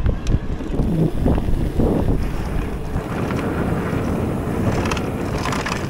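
Wind rushing over the microphone and mountain bike tyres rolling over a gravel trail, with scattered clicks and rattles from the bike.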